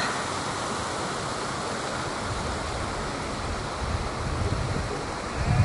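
Wind blowing across the camera microphone: a steady rushing, with low buffeting gusts about two seconds in, again around four seconds, and a stronger one near the end.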